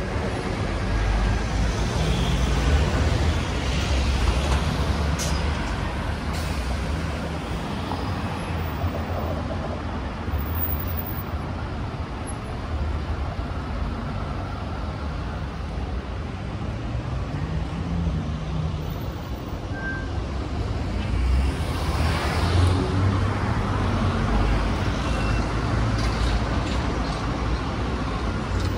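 City street traffic: motor vehicle engines running at close range with a steady rumble, and one vehicle passing louder about two-thirds of the way through.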